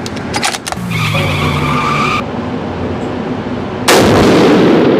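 A few light clicks and a short humming tone, then a single loud shot from a Seekins Havak PH2 rifle in .300 PRC about four seconds in, booming and echoing off the walls of an indoor range.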